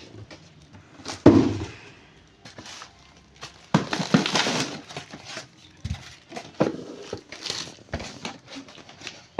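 Packaging being handled as a pressure washer is unpacked: irregular rustling and crackling with several sharp knocks, the loudest about a second in.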